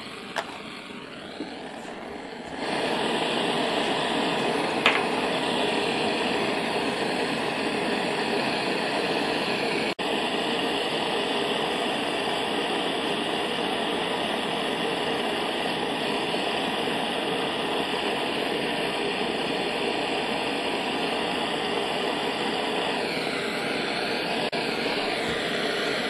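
Handheld gas blowtorch flame hissing steadily as it heats a brass fitting for soldering. It gets much louder about two and a half seconds in.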